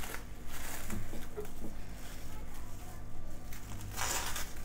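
Plastic cling film crinkling and rustling as it is peeled back off a dish of frozen ice cream, a little louder near the end.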